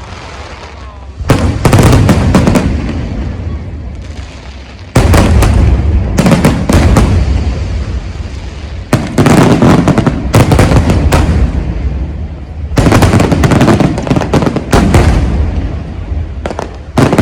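Fireworks display: aerial shells bursting in volleys of rapid loud bangs a few seconds apart, each volley trailing off in a low rumbling echo.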